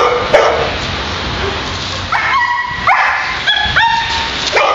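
German shepherd barking and giving high-pitched yelping cries while held on the leash, worked up against a decoy in protection training: two short sharp barks at the start, three brief high cries in the middle, and another bark near the end.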